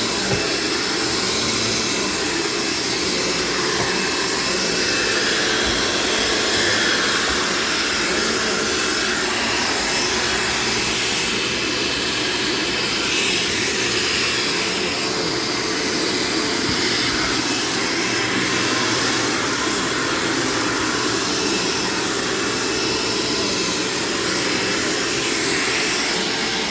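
1990 Dirt Devil Featherlite bagged upright vacuum cleaner running steadily while vacuuming, a constant motor whine and airflow hiss.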